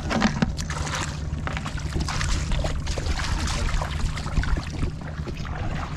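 Bare feet squelching and splashing through wet mud and shallow water, irregular and uneven, over a steady low rumble.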